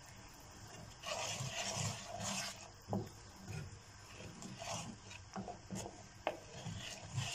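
Wooden spoon stirring a watery tomato sauce in a frying pan, scraping the pan bottom in irregular strokes from about a second in. A few sharp knocks of the spoon against the pan come in between.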